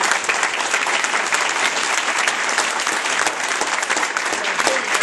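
Audience applauding, dense steady clapping from many hands.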